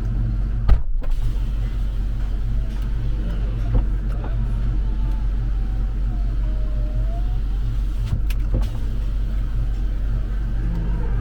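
Supercharged 5.3 L V8 of a Chevrolet Suburban idling with a steady low hum, heard from inside the cabin, while the passenger power window motor runs. A sharp switch click comes just under a second in and more clicks come near the end.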